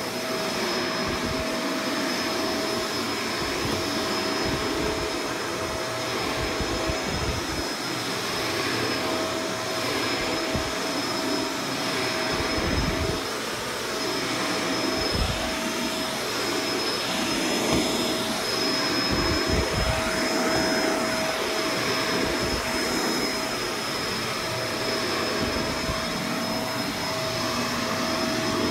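Vacuum cleaner running on carpet, a steady motor whine with a higher tone above it. The lower part of the sound keeps shifting and swelling as the machine is moved about.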